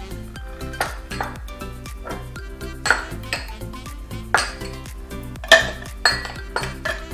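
Small glass bowls clinking as they are set down and moved about on a wooden chopping board, with a metal spoon clinking in one: about eight sharp clinks, the loudest a little past halfway. Background music plays underneath.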